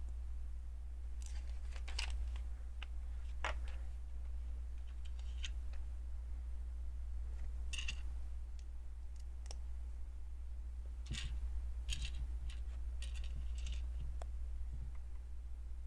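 Plastic LEGO pieces clicking and snapping as they are handled and pressed together, scattered sharp clicks and short clusters of clicks every second or so, over a steady low hum.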